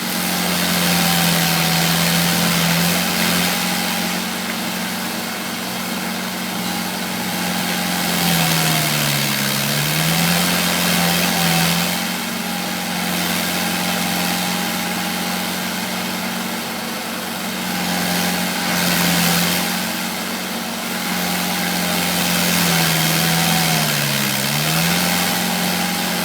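RG100 stump grinder running at speed, its engine note steady with a grinding hiss over it. Twice, about nine seconds in and again near the end, the engine pitch dips briefly and recovers.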